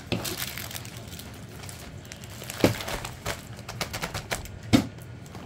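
Clear plastic packaging crinkling and small items clicking as they are handled on a tabletop, with two louder knocks, one near the middle and one near the end.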